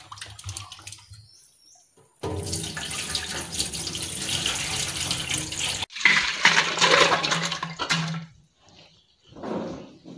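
Hands swishing peeled jackfruit seeds in water, then a steady stream of water pouring into a metal pressure cooker for several seconds, breaking off once sharply and starting again.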